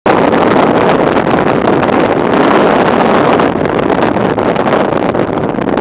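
Steady, loud rush of wind over the microphone of a moving motorcycle, mixed with engine and road noise while riding at speed.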